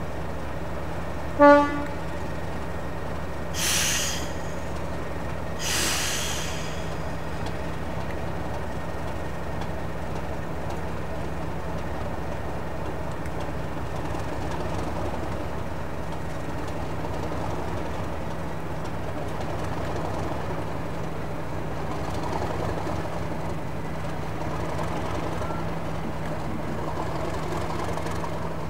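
Diesel locomotive engine running steadily, sounding one short blast on its horn about a second and a half in. Two short hisses of air follow a few seconds later.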